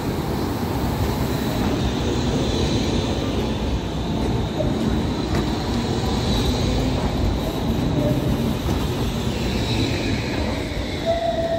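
Crotram TMK 2200 low-floor tram passing close by on a curve: a steady rumble of wheels on the rails, with a faint high whine that falls in pitch near the end.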